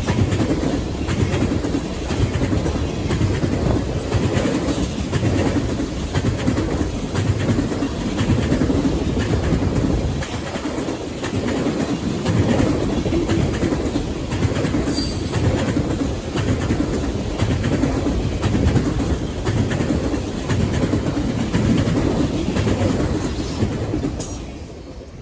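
A train's cars rolling past close by: a steady rumble with repeated clacks of wheels over rail joints, a brief high wheel squeal about 15 seconds in. The sound drops away sharply near the end.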